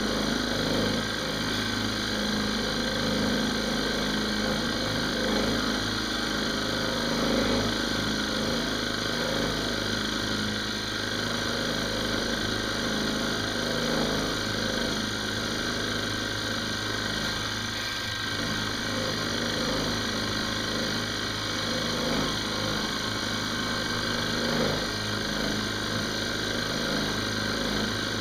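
Benchtop milling machine spindle running at about 1500 RPM while an end mill takes a slow, light finishing pass along an aluminum blank. The motor and cutting noise is steady and even.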